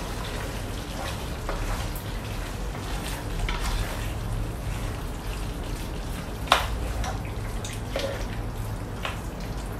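Thick pork and liver stew being stirred in a nonstick pot with a spatula: wet, sloppy stirring of the meat and sauce, with occasional clicks and knocks of the spatula against the pot, the sharpest about two-thirds of the way through, over a steady low hum.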